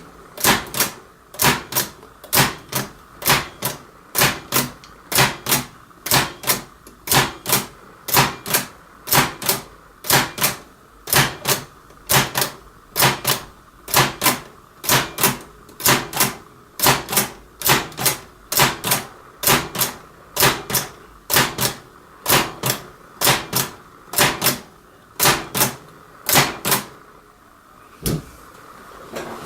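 Hammond Multiplex Model 26 typewriter typing, each keystroke a sharp clack of the hammer, at an even pace of about two strokes a second. The hammer is engaging fully and the lettering comes out well. The typing stops near the end, with one faint click after it.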